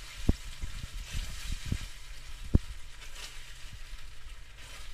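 A silicone spatula stirring thick sweet-and-sour chilli-tomato sauce in a frying pan, with a steady faint sizzle. Soft low plops and thuds come from the sauce and the spatula against the pan, the loudest about two and a half seconds in.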